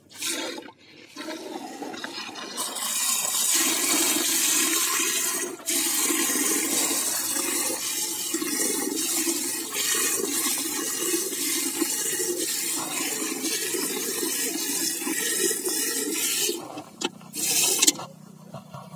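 Buffalo milk jets from hand milking hitting the milk in a steel bucket: a steady hissing splash that stops a couple of seconds before the end.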